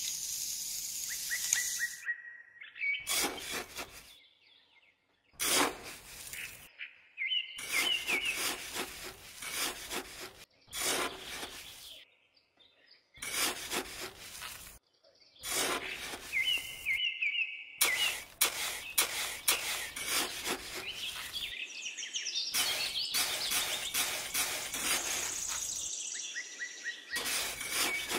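Birds chirping in the background, with repeated sharp clicks and taps. The sound comes in short stretches that start and stop abruptly.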